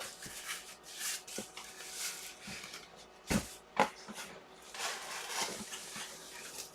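Cardboard box and plastic packaging being opened and handled, rustling and crinkling, with two sharp knocks a little over three seconds in.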